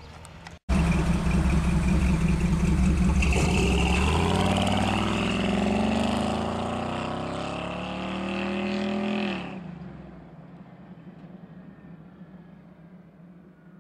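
1970 Ford Bronco engine accelerating away. Its note is loud and steady at first, then slides lower and fades, dropping off sharply about nine and a half seconds in.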